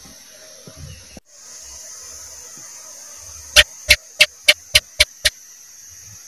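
House gecko (cicak) calling: a run of seven sharp chirps in under two seconds, the first the loudest and each coming a little quicker than the last, over a steady high hiss.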